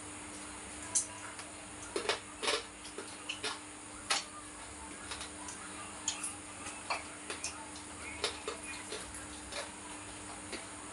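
Close-up eating sounds of two people eating with their hands: irregular small clicks and smacks of chewing and of fingers and food against plates, over a steady low hum.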